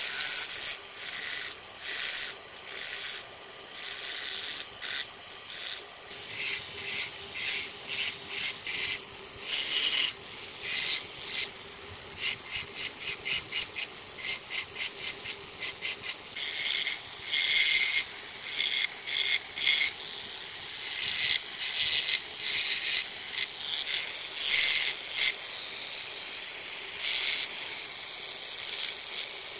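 Small metal carving tool cutting fine detail into soft wood: short, sharp scratchy strokes, irregular at first, then in quick runs of several a second, with louder clusters later on.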